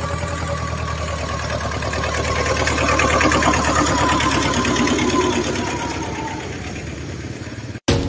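A small utility vehicle's engine running steadily, growing louder around the middle and fading again, then cutting off suddenly near the end.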